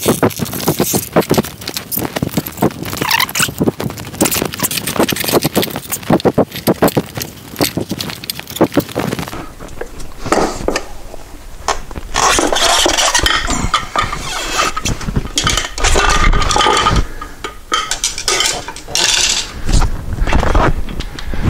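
Metal scraping and clinking against a spoked motorcycle wheel rim as a stiff old tire's bead is worked off by hand. There are dense quick clicks and scrapes for roughly the first half, then coarser rubbing and scuffing.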